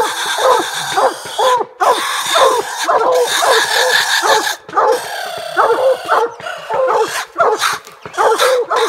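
Coonhounds barking treed at the base of a tree: rapid, overlapping barks, several a second, the steady tree bark that tells the hunters a raccoon is up the tree.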